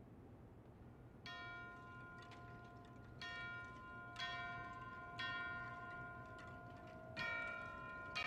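Bell-like mallet percussion from a marching band's front ensemble, starting about a second in: five single struck notes, spaced one to two seconds apart, each left to ring into the next, opening the show.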